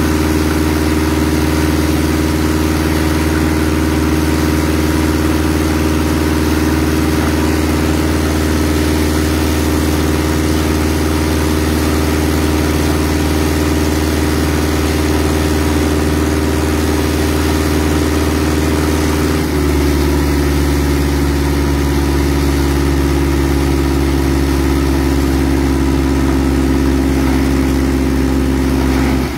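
Workboat engine running steadily under load while a high-pressure water jet blasts piles of shellfish seed off the deck, with a continuous hiss of spray over the engine. About two-thirds of the way through, the engine note changes abruptly and then holds steady again.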